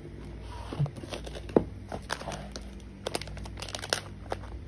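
Scattered rustling and short clicks of a shoe-cleaning wet wipe being rubbed over a sneaker, and the shoe being handled and set down, with a sharper click about one and a half seconds in.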